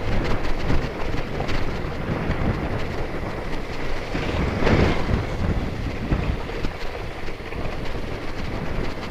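Wind buffeting an external microphone on a moving motorcycle, over the low rumble of the bike underway; a louder gust swells about halfway through.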